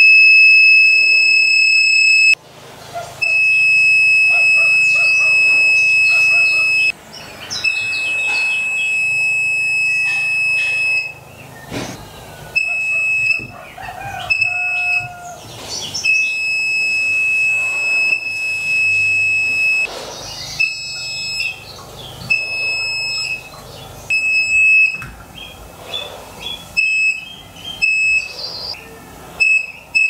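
Piezo buzzer of a homemade laser-beam alarm sounding one high, steady beep tone, switching on and off as the beam to the optical-mouse sensor is broken and restored. It gives long beeps of several seconds at first, then shorter ones, and near the end a quick run of short beeps, about three a second.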